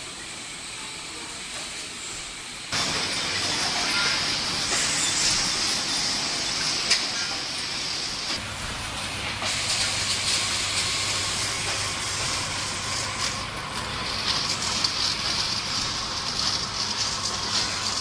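Water-bottling line machinery running: a steady hiss with many light ticks. It gets suddenly louder about three seconds in, and a low hum joins about eight seconds in.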